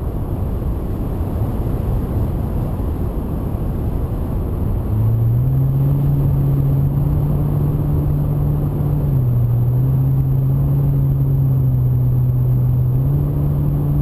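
Wind rushing over the on-board camera of a Multiplex Easystar model plane in flight. About five seconds in, the steady hum of its electric motor and propeller joins. The hum drops in pitch around nine seconds and rises again near the end as the throttle changes.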